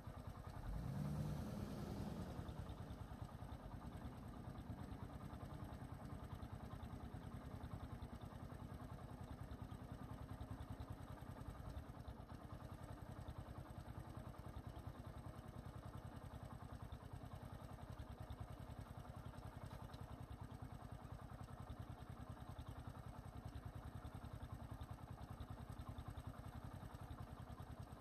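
Vehicle engine idling steadily and faintly, with a short louder sound about a second in.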